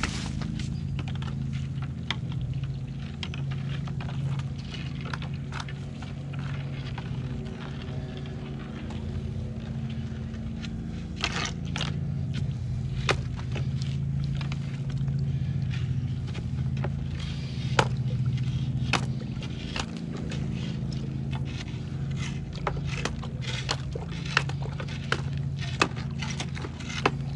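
A rod poking and tamping wet cement inside a piling's snap jacket form, with scattered sharp taps and knocks that come thick and fast near the end. A steady low motor hum runs underneath.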